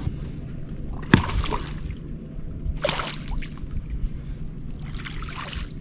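Steady low hum aboard a fishing boat on the water, with two brief noisy bursts about one and three seconds in.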